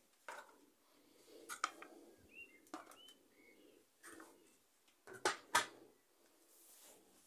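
Handling noise as groceries and their plastic packaging are moved about on a table: scattered light knocks and rustles, the loudest pair about five seconds in. A few faint bird chirps come midway.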